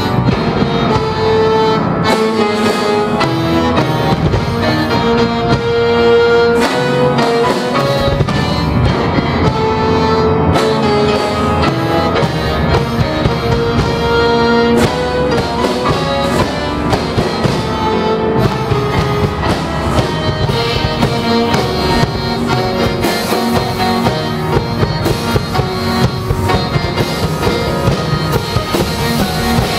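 Live acoustic combo playing a metal-inspired classical arrangement: held melody notes from accordion and saxophone over piano and drum kit, the drumming growing busier in the second half.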